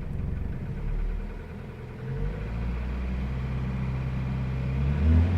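Isuzu D-Max engine running, its note dropping back about a second and a half in, holding steady, then swelling louder near the end: the noise its owner treats as a problem.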